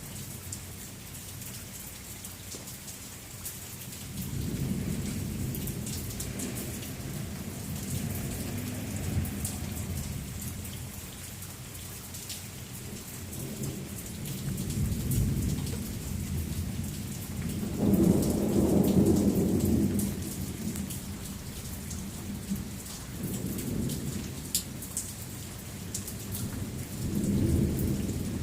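Thunderstorm: steady rain with drips, under several low rolls of thunder. The loudest roll comes about two-thirds of the way through, and shorter ones follow near the end.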